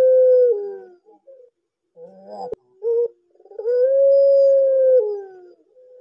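Puter pelung (Barbary dove) giving its long, drawn-out coo: a held note that drops in pitch at its end, twice, with short coos between. There is a sharp click about midway.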